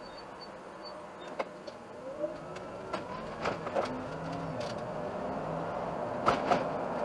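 Iveco Urbanway city bus moving off and accelerating, heard from the driver's cab and played back three times fast: a drivetrain whine that rises in pitch, then holds steady, over road noise, with scattered sharp clicks and knocks.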